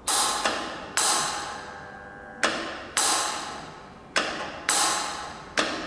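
The high-pressure gas valve of a CO2 jet machine clicking open and shut again and again, about eight sharp clacks in loose pairs, each ringing out briefly.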